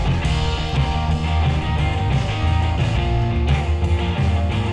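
Live rock and roll band playing: guitar over a strong bass line from an upright double bass.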